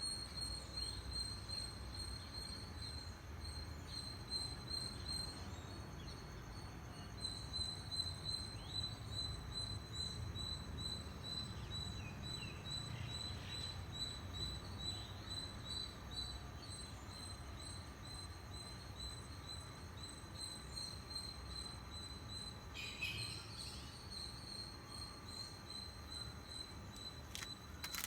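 Squirrel calling with a rapid, steady, high-pitched chirping held at one pitch, with a few short falling chirps mixed in.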